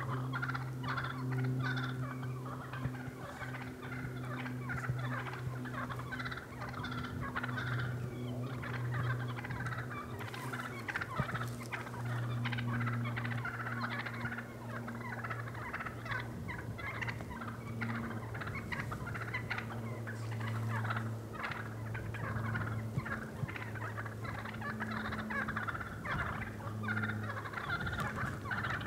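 A flock of wild turkeys calling at close range, toms gobbling among busy, rapid calls, over a steady low hum.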